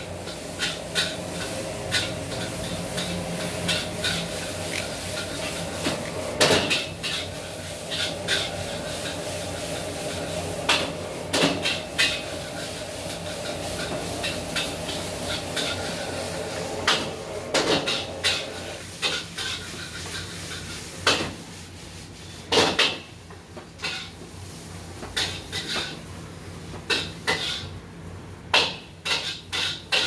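Parrots' beaks gnawing and pecking at a wooden perch and board, giving irregular sharp clicks and taps. A steady hum underneath stops about two-thirds of the way in.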